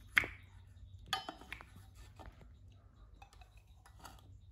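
Clicks and clinks of a scoop and bottle against an open metal milk-formula tin as powder is scooped out: one sharp click about a quarter second in, the loudest, then a short clatter with a brief ring about a second in, and a few lighter taps after.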